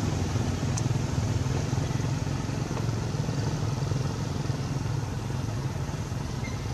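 A small engine running steadily at idle: a continuous low drone with a fast, even pulse.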